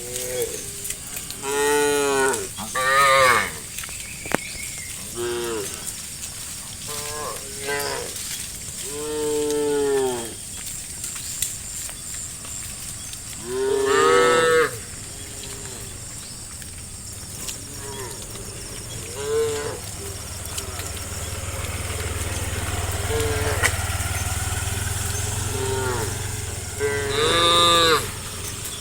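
A herd of cattle mooing: a dozen or so moos from several cows, some loud and close, others fainter, with the loudest calls about two seconds in, halfway through and near the end. A low steady rumble runs under the calls through much of the second half.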